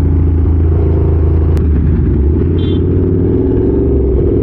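KTM 1290 Super Duke's V-twin engine running at a steady cruising speed, picked up by the rider's onboard microphone, with a constant low drone. There is one sharp click about a second and a half in.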